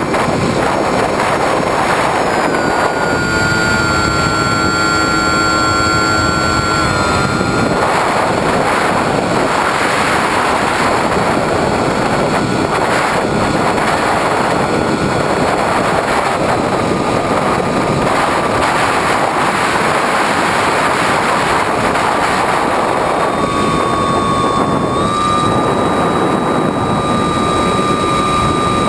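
Electric motor and propeller of a Skywalker 1900 FPV plane heard through the onboard GoPro: a steady whine over heavy rushing wind and propeller noise. The whine's pitch steps down a few times with throttle changes and jumps back up near the end.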